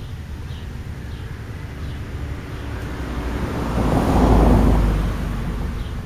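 A road vehicle passing by: its noise swells to a peak about four seconds in, with a deep rumble, then fades away. A few faint bird chirps come through.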